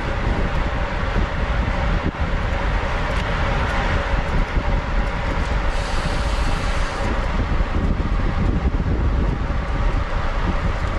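Wind rushing over the microphone of a road bicycle moving at race speed, with a steady low road rumble and a brief rise in hiss about six seconds in.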